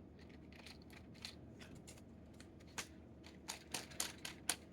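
Light plastic clicks and taps of a LEGO Technic model being handled and turned over, scattered at first and coming quicker and louder in the second half.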